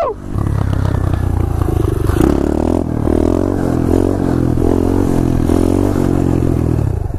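SSR 125cc pit bike's single-cylinder four-stroke engine pulling under throttle through a wheelie, the revs wavering up and down as the throttle is worked to hold the front wheel up.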